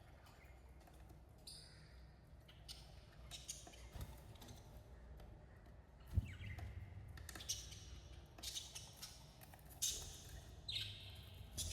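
Budgerigars chirping in short, scattered calls, a few of them sweeping downward in pitch, with a soft knock about six seconds in.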